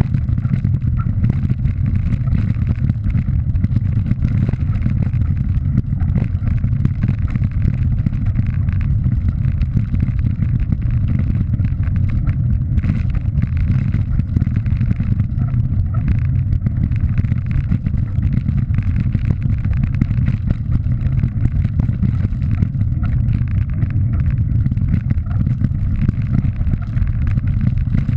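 Steady low rumble of wind buffeting a moving camera's microphone, mixed with tyre noise from riding over a gravel track.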